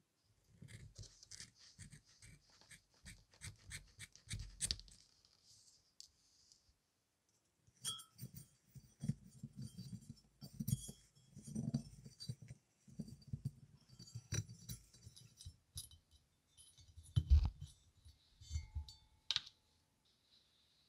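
Wool felt being handled and packed by fingers into a 1953 Delta motor's metal end housing: quiet, scratchy rustling with small clicks and soft knocks, and one louder knock about seventeen seconds in.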